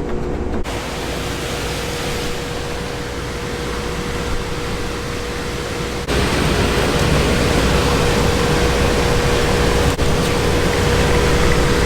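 Steady rushing air-and-machinery noise with a constant hum, jumping louder suddenly about six seconds in.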